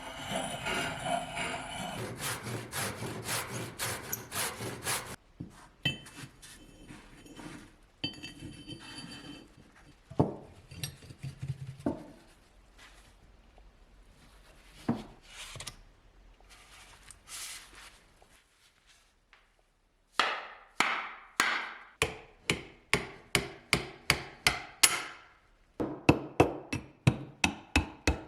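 Hand work on a wooden axe handle. First a run of rubbing strokes, then a few scattered knocks, and from about twenty seconds in a quick series of sharp hammer-like knocks, about three a second, pausing briefly before a last burst.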